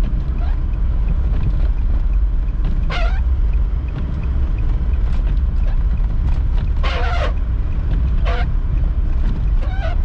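Steady low rumble of a car driving on a snowy road, heard from inside the cabin. A few brief pitched sounds cut in over it.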